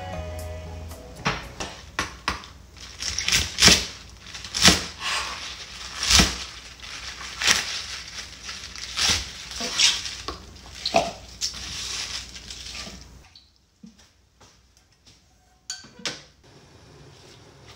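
Kitchen knife chopping komatsuna (Japanese mustard spinach) on a cutting board: a run of irregular cuts, each ending in a knock on the board, one or two a second. The chopping stops about 13 seconds in, and a couple of light clacks follow near the end.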